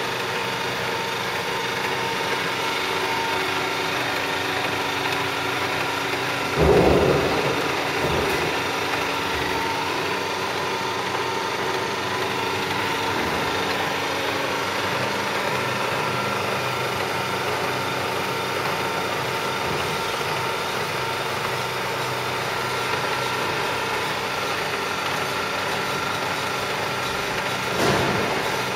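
Butler Elgamill CSN10 bed mill running: a steady mechanical hum made of several steady tones. A clunk comes about seven seconds in and another near the end.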